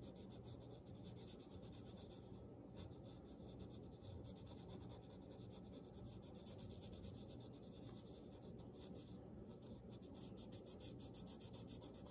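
Faint scratching of a small golf pencil's graphite lead on paper in quick back-and-forth shading strokes, made with the side of the lead.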